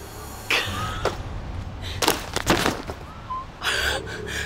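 A woman gasping and sobbing in three short breathy bursts over a low steady hum.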